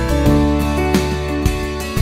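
Instrumental background music: plucked notes over a held bass line.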